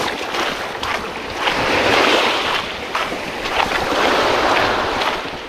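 Small waves washing up and drawing back over a pebble beach, swelling twice, with wind on the microphone and a few brief clicks.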